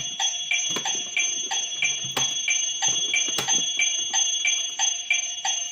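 Educa talking toy clock playing an electronic ticking pattern through its small speaker, about three ticks a second over a steady high tone, while its plastic hands are turned with a few light clicks.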